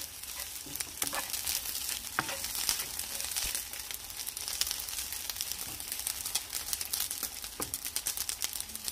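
Dried anchovies (dilis) frying in a wok in their own oil, with no oil added: a steady sizzle full of small crackling pops. A wooden spatula scrapes and stirs the little fish around the pan.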